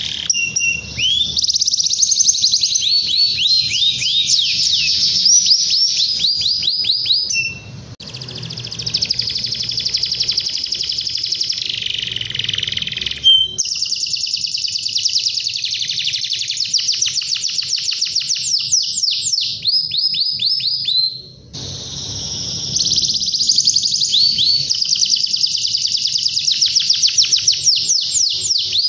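Domestic canary singing a long, loud song of fast rolling trills and rapid repeated notes, breaking off briefly twice, about 8 and 21 seconds in.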